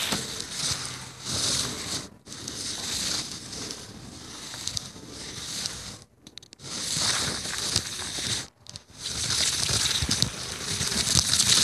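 Crackling, hissing handling noise on the camera's microphone as the camera is moved about. It drops out to near silence three times for a moment and grows loudest near the end.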